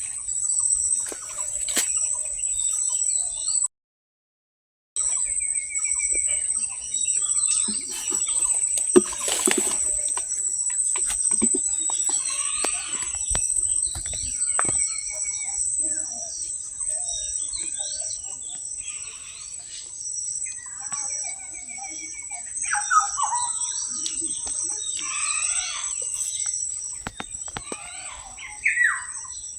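Birds chirping and calling, with short trills and repeated chirps, over a steady high-pitched drone. Scattered clicks and knocks run through it, and the sound cuts out completely for about a second, about four seconds in.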